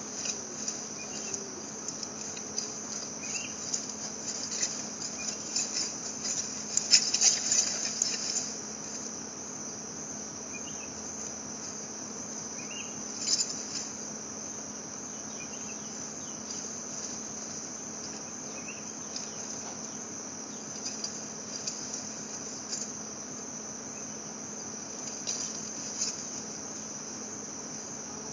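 Steady, high-pitched chorus of insects buzzing without a break. A louder burst of noise about seven seconds in lasts roughly two seconds, with a shorter one a few seconds later.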